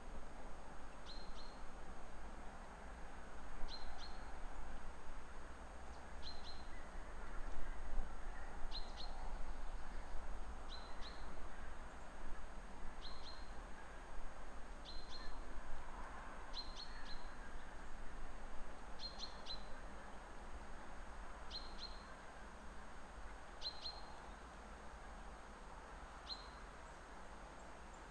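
A bird repeating a short, high chirp about every two seconds, a dozen times, over a steady low rumble and faint hiss.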